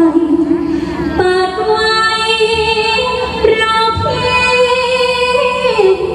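Female likay singer singing into a handheld microphone, a slow melody of long held notes stepping up and down in pitch.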